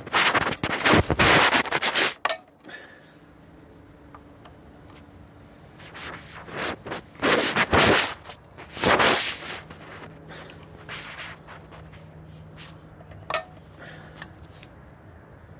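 Torque screwdriver working the screws of an EV charger's terminal block: two bursts of scraping and rapid clicking, one at the start and one about six seconds in, then a single sharp click near the end.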